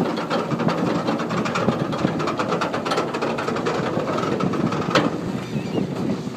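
Small boat's outboard motor running steadily, with wind on the microphone and a single knock about five seconds in.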